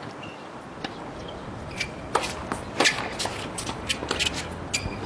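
Footsteps and shoe scuffs on a tennis court: a scatter of short, sharp, irregular clicks, more frequent from about two seconds in, over a steady background hum.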